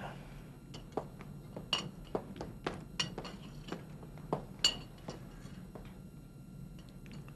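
Cutlery clinking against china plates and glasses at a meal: irregular light, sharp clinks with a brief ring, mostly in the first five seconds, over a low steady hum.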